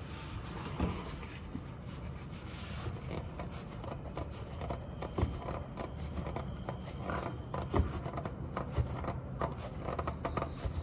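Gloved hand and a rag rubbing and scraping on a new spin-on oil filter as it is hand-tightened the last three-quarter turn past snug, with scattered small clicks.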